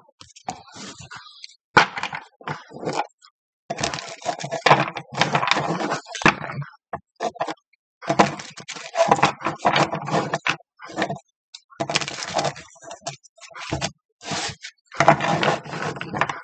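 Tarot cards being shuffled by hand: crackling bursts of card-riffling noise a second or two long, with short pauses between them.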